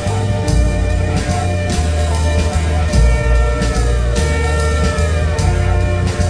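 Rock-style soundtrack music with guitar and drums over steady low notes, with two falling pitch glides about three and four seconds in.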